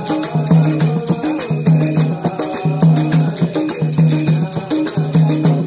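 Devotional bhajan music with no singing: instruments over a steady beat of drum and jingling percussion, a short low figure repeating about twice a second.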